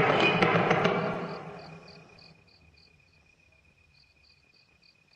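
A loud rattling noise with sharp clicks fades away over the first two seconds. It leaves faint crickets chirping: a steady high trill under a pulsed chirp about three times a second, with a short break a little after three seconds in.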